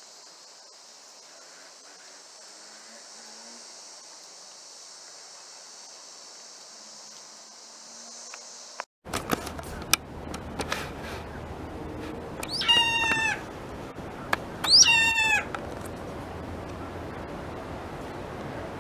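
An animal gives two loud, drawn-out meow-like calls about two seconds apart, each rising at the start and then holding. Before them, a steady high hiss runs and then cuts off abruptly about halfway through.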